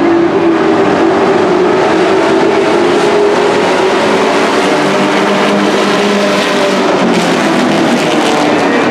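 A pack of dirt-track race trucks running at racing speed. Their engines blend into a loud, steady drone whose pitch shifts slightly as they lap the oval.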